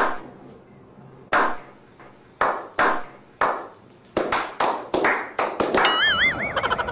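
A slow clap by a small group of men: single claps about a second apart at first, speeding up into quicker clapping from about four seconds in. A short warbling tone sounds near the end.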